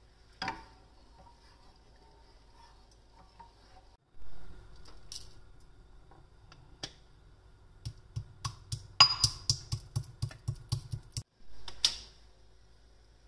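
Pestle pounding cardamom pods in a marble mortar: a quick run of sharp clicking strikes, about four or five a second, in the later part, after a few single knocks.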